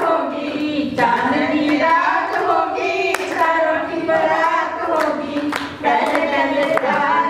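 A group of voices singing together, with a few hand claps.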